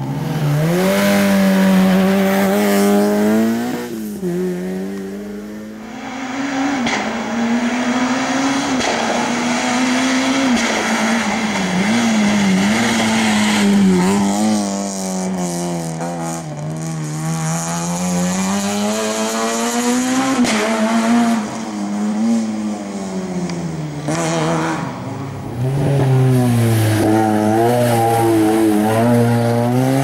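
Rally car engines revving hard, one car after another, among them a Peugeot 106. The engine note climbs and drops again and again as the cars shift through the gears on a twisty tarmac stage, with some tyre squeal in the corners.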